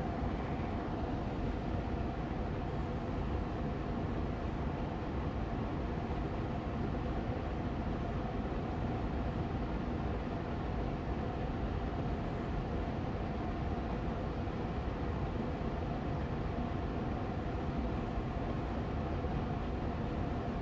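Austin Air Allergy Machine air purifier fan running steadily on medium speed: an even, low rushing hum with a faint steady tone riding above it.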